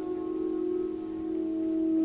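Slow meditative music of sustained, ringing tones, dipping slightly at the start and swelling again near the end.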